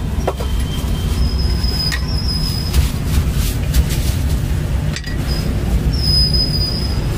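Steady low rumble of street traffic, with a few knocks of a cleaver chopping roast pork on a round wooden chopping block. Two brief high-pitched squeals cut through, one about a second in and one about five and a half seconds in.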